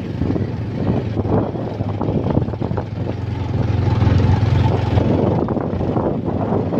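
Motorcycle running along a rough dirt mountain road: a steady low engine drone with road and wind noise over it, swelling a little about four seconds in.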